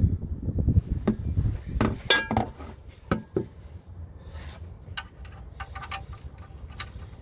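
Oil drain pan being shifted with a low rumble, then sharp metallic clinks and lighter ticks as the oil drain plug is handled and threaded back into the engine's oil pan by hand after draining.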